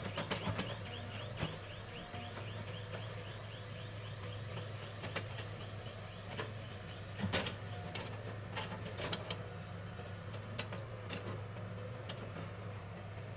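A steady mechanical hum with a rapid, even ticking over the first few seconds and scattered sharp clicks, the loudest cluster about halfway through.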